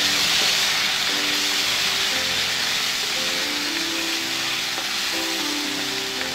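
Chopped tomatoes and onions sizzling in hot oil in a nonstick pan as they are stirred with a spatula, with soft background music running under the sizzle.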